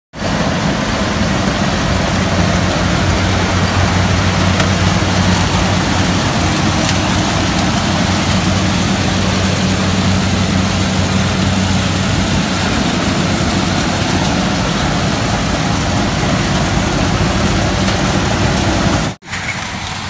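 Kubota WRH1200 combine harvester running at close range while cutting corn stalks: a steady engine hum under a dense mechanical rushing noise from the header and threshing gear. It cuts off abruptly near the end.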